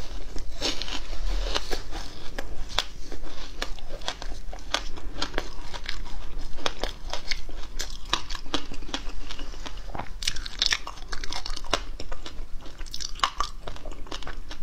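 Biting and chewing a thin sheet of frozen passion fruit ice: sharp cracks as pieces snap off, and dense crunching of the ice between the teeth.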